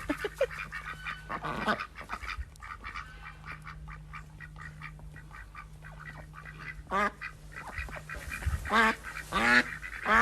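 Ducks quacking: a few scattered calls, then a run of loud, repeated quacks near the end.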